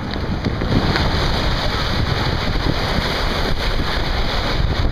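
Steady rushing of wind buffeting the camera microphone, mixed with the wash of sea water around a kayak.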